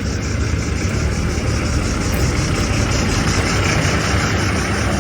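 Vehicle engine running steadily with a low rumble and road noise; no crash impact.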